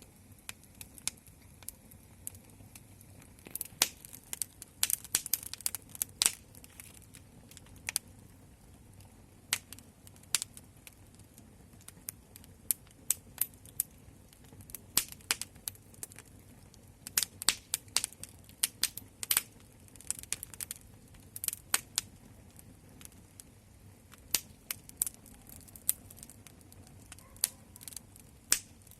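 Wood fire crackling: irregular sharp pops and snaps, sometimes in quick clusters, sometimes spaced out, over a faint steady low hum.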